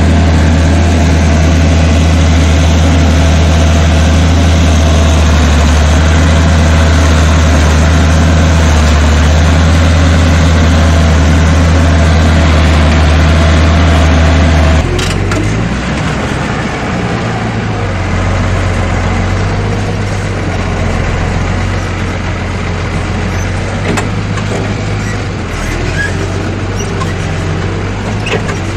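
Six-cylinder tractor engine running steadily while pulling a moldboard plow through dry stubble. About halfway through, the engine note changes suddenly and becomes somewhat quieter.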